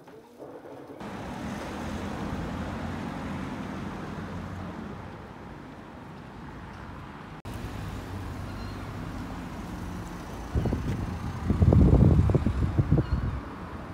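City street ambience with the steady sound of road traffic. Near the end, wind buffets the microphone in loud, low rumbling gusts for a few seconds.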